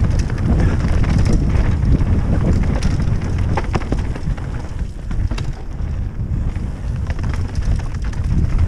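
Wind rumbling over the camera microphone while a mountain bike rolls fast down a dry dirt trail, with tyre noise and sharp knocks and rattles from the bike as it goes over roots and bumps.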